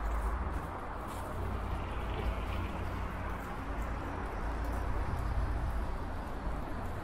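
Wind buffeting the microphone with a steady low rumble, over the hiss of bicycle tyres rolling on the road while riding, with faint scattered clicks.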